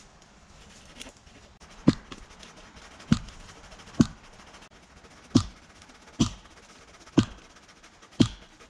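Chopping into wood with a blade, seven sharp, solid strikes about a second apart.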